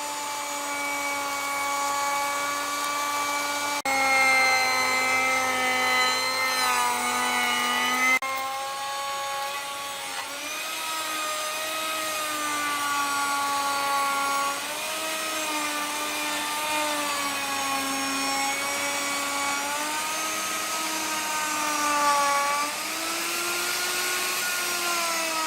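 Electric power tool running on wood, its motor pitch sagging and recovering as it bears into the work, with a couple of sudden shifts in pitch.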